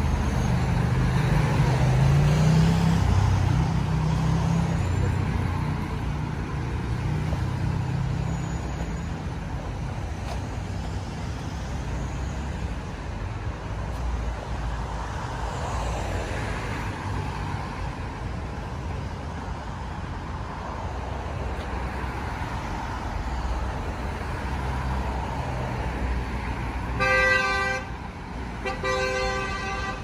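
Steady rumble of city road traffic, with a car horn honking twice near the end, the first honk about a second long and the second slightly longer.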